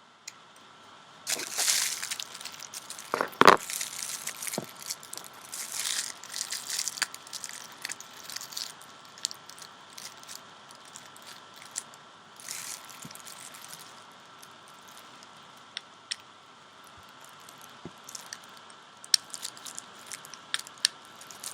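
Small plastic and glass vaporizer parts of a Volcano Easy Valve filling chamber being handled and fitted together: scattered clicks, scrapes and rustling, busiest in the first few seconds, with one sharp knock that rings briefly about three and a half seconds in. A faint steady high tone sits underneath.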